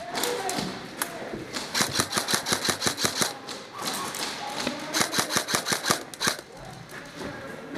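Airsoft rifle firing two rapid bursts of sharp snapping shots: one about two seconds in, lasting about a second and a half, and a shorter one about five seconds in.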